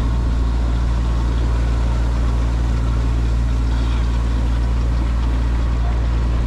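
A boat's engine running steadily, a low, even drone with no change in speed.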